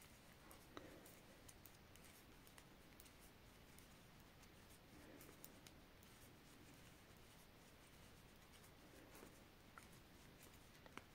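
Near silence, with faint clicks and light scratching of metal knitting needles as stitches are knitted, scattered irregularly.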